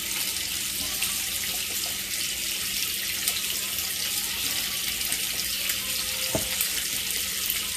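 Steady fizzing hiss from the seasoned, beer-laced boil liquid in the stockpot, its surface foaming as lemon pepper is shaken in. One light knock about six seconds in.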